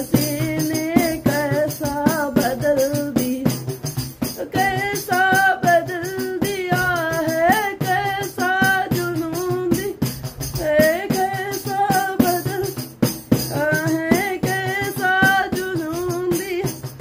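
A woman singing a Hindi Christian devotional song, her voice rising and holding long notes, while she beats and jingles a hand tambourine in a steady rhythm.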